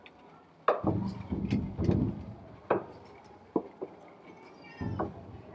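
Irregular sharp wooden knocks and low thuds from a festival procession hauling a large taiko drum on a wooden cart. The thuds come in two spells, the first from about a second in and the second near the end.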